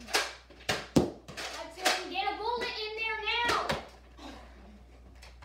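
Sharp clacks and knocks of Nerf blasters firing and foam darts striking, half a dozen in all, the loudest about a second in. A child's wordless voice calls out from about two seconds in to about three and a half seconds.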